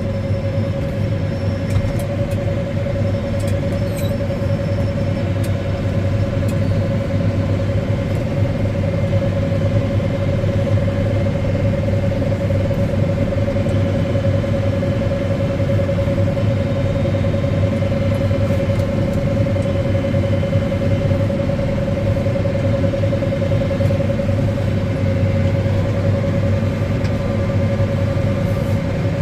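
Old combine harvester running steadily while cutting barley: a constant low engine drone with a steady whine on top.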